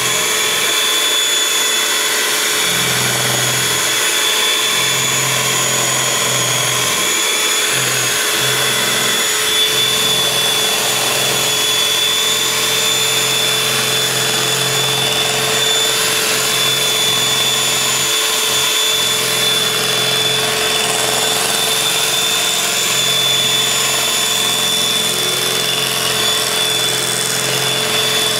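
Electric hand mixer running at a steady speed with a constant whine, its beaters working a liquid batter of sugar, oil and eggs in a glass bowl.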